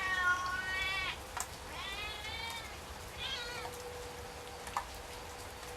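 Domestic cat meowing three times, the first call long and drawn out, the next two shorter: a hungry cat demanding food kept just out of reach. Steady rain hiss underneath, with a couple of sharp clicks.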